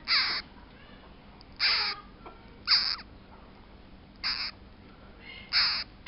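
A parrot squawking: five short, harsh calls a second or so apart.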